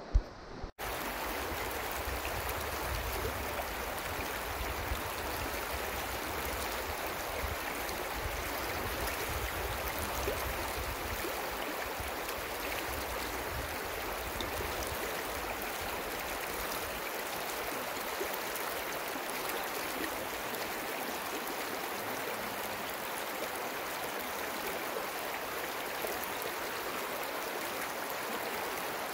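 Creek water running steadily over rocks and riffles, an even rushing babble. A brief knock at the very start.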